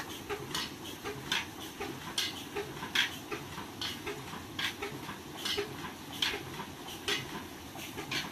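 Old 35 HP Ruston Hornsby diesel engine running slowly: a low steady rumble with a sharp metallic clack roughly once a second.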